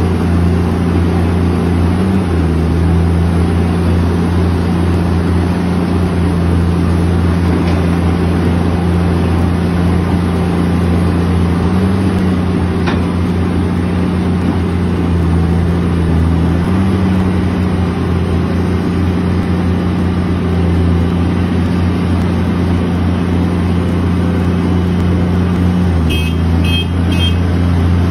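Diesel engine of a LiuGong excavator running steadily at working speed, its pitch stepping briefly up and down a few times.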